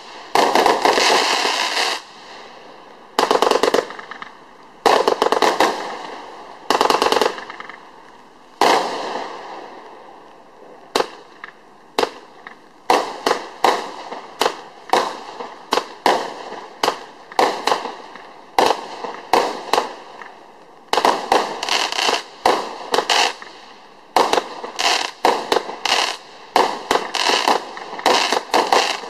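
Compound fireworks cake (a 170-shot battery of 25 mm and 20 mm shot tubes) firing. In the first ten seconds it goes off in clusters of shots with crackling breaks. After a couple of lone shots it fires a quick run of single shots, about two a second, and it ends in dense crackling volleys.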